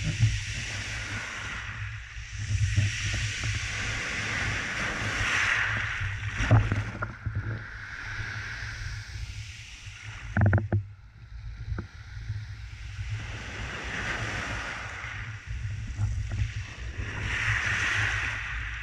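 Ocean waves surging up a black pebble beach and drawing back, the surf's hiss swelling and fading every few seconds as the water washes over and drags the pebbles. A steady low rumble runs underneath, with a couple of sharp knocks, about six and ten seconds in.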